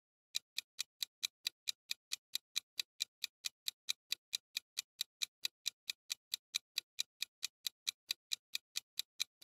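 Clock-ticking sound effect counting down a quiz timer: short, sharp, evenly spaced ticks at about four and a half a second, starting about half a second in.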